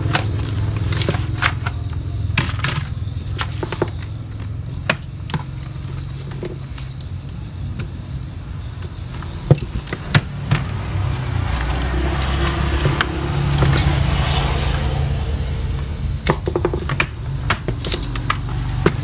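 Scattered sharp clicks and knocks of a Toshiba laptop's hard plastic case and parts being handled, opened and turned over during disassembly. A steady low hum runs underneath.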